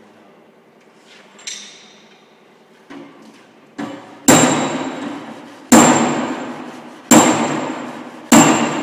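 Hammer blows on metal at a pickup's rear wheel: four hard strikes about a second and a half apart, each ringing with a high metallic ring that fades over about a second, after a couple of lighter knocks.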